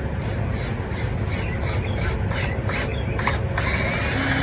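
Cordless drill with an extension bit driving a screw: short repeated bursts of the drill, about three a second, then a continuous run of about a second and a half near the end as the screw drives all the way in.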